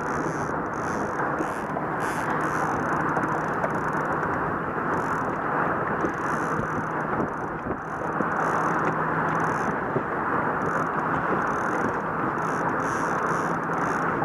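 Wind buffeting an action camera's microphone over open water, a steady rush with a faint low hum underneath.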